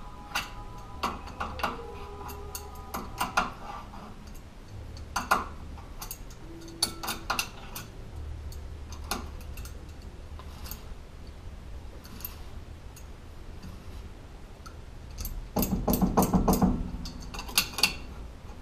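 Wrench working the castle nut on a front wheel hub spindle, tightening it on the wheel bearing: scattered metal clicks and clinks, then a dense flurry of clicks and scraping near the end.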